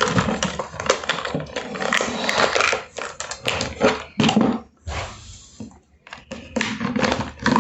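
Hard plastic toy parts rubbing, scraping and clicking as a Batman figure is forced into the Imaginext Batsub's tight seat, in uneven bursts with a short lull about two-thirds through.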